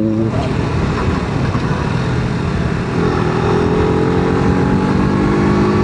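Motorcycle engine running under a dense steady noise while riding. About three seconds in, the engine note rises slowly as the bike accelerates.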